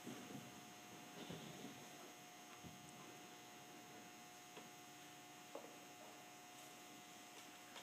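Near silence: room tone with a faint steady electrical hum and a few soft knocks.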